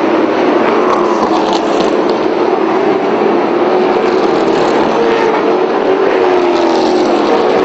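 Several NASCAR late model stock car V8 engines running at racing speed on an oval, loud and continuous, their pitch sliding down as cars go by in the second half.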